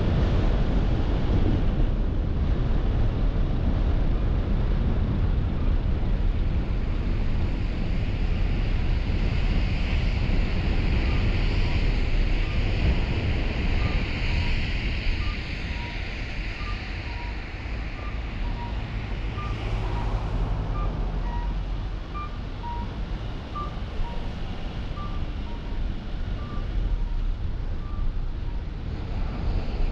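Car driving through city streets: steady road and tyre rumble with wind hiss, easing off about halfway through. From about eleven seconds in, a string of short electronic beeps alternating between two pitches repeats steadily over it.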